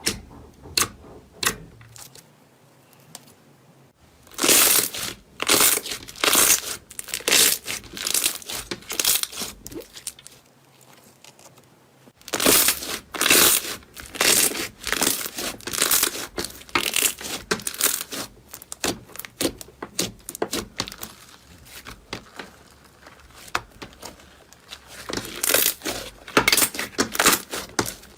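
Slime being squeezed and worked by hand, giving dense crackling and popping in three long spells with quieter gaps between.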